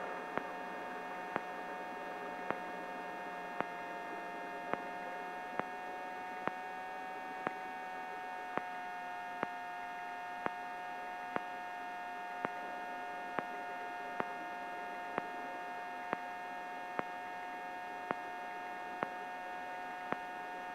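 Steady electrical hum and whine, with faint clicks about once a second, as heard on a helicopter's intercom audio line while nobody is talking; no rotor or engine noise comes through.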